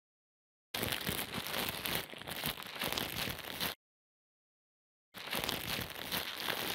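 Dense crackling, crinkling noise in two stretches of about three seconds each, with dead silence between.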